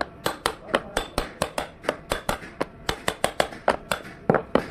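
Hammer tapping on metal in quick succession, about four to five sharp strikes a second, each with a short ring.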